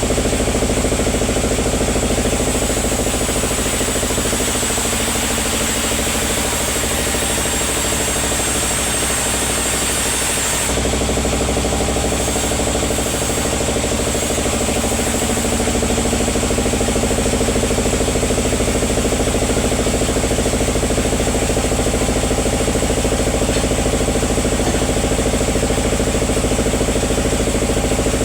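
Sawmill machinery running steadily on an engine, a dense, even drone. About eleven seconds in the sound changes: a high hiss falls away and the low hum grows stronger.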